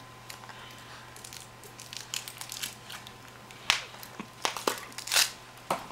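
Yellow plastic Kinder Surprise toy capsule being twisted and pried open by hand: a run of small plastic clicks and crackles, with a few louder snaps in the second half.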